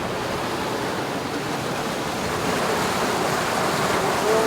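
Steady rush of water along a sailboat's hull as it sails under way, with some wind.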